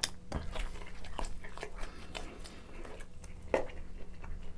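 Close-miked chewing of a bite of Domino's pepperoni pizza: irregular soft wet smacks and mouth clicks, with one louder smack about three and a half seconds in.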